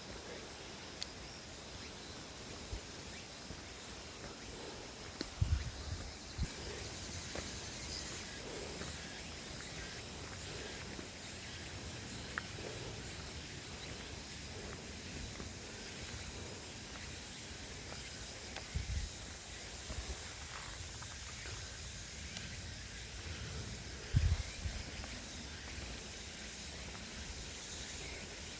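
Outdoor nature ambience: a steady, even hiss, with a few short low thumps, three of them plain, about five, nineteen and twenty-four seconds in.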